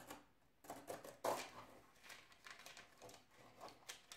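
Brown paper rustling and scraping as a craft knife cuts a drawer liner along the inside edge of a wooden drawer. Faint, irregular scratches and crinkles, the loudest about a second in.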